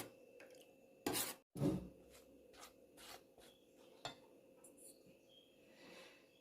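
Kitchen handling sounds: scattered light clicks and taps of utensils on dishes, with two louder short scrapes a little over a second in.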